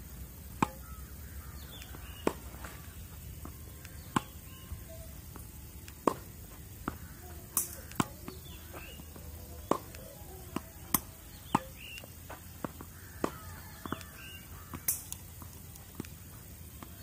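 Tennis balls struck with a racquet: a sharp pop about every two seconds as balls are fed one after another, with fainter pops in between.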